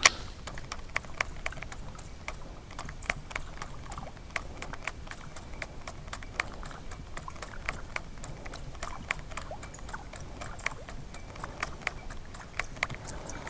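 Fishing tackle clicking lightly and rapidly, several irregular clicks a second, as a zara-style topwater lure is twitched and reeled back across the water.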